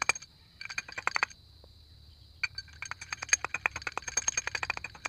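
Rapid small metallic clicks, about ten a second, as a bearing is worked into the hub of a Mio Sporty scooter's torque drive. They come in bursts, stop briefly twice (the longer pause about a second and a half in), and a steady high-pitched tone runs underneath.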